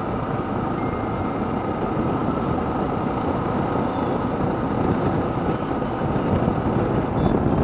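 Steady riding noise from a Yamaha R15 V3 motorcycle on the move: wind rushing over the microphone, with the bike's engine and surrounding traffic underneath.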